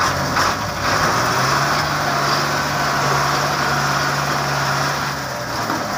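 Belarus tractor's diesel engine running hard under load, its pitch held steady, as the rear wheels churn in loose sand while it works a brick-loaded trolley.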